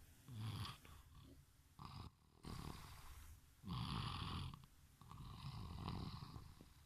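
Snoring: a run of about five snores at uneven intervals, each lasting from a fraction of a second to over a second, the last one the longest.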